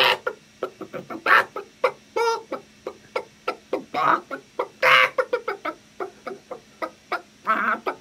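A man imitating a chicken with his voice: a run of short, irregular clucks with a few longer, louder squawks mixed in.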